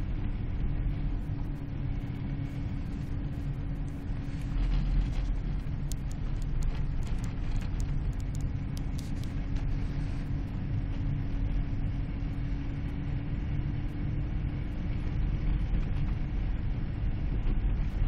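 Car driving slowly on a snow-covered road, heard from inside the cabin: a steady low engine and tyre rumble with a steady drone through it.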